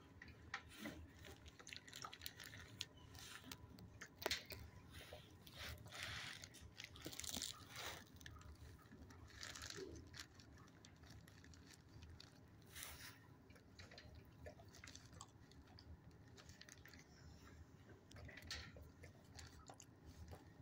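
Dog chewing a crunchy treat: faint, irregular crunching clicks, thickest in the first half and sparser later.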